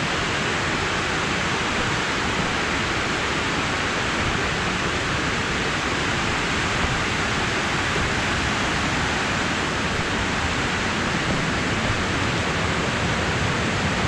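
Waterfall and stream running: a steady, unbroken rush of water.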